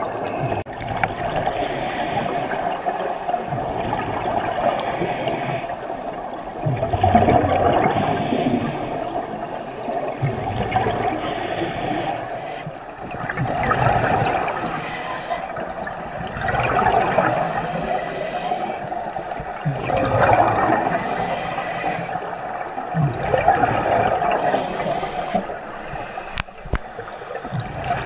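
Scuba divers breathing underwater through their regulators: a gurgling rush of exhaled bubbles about every three seconds, over steady water noise.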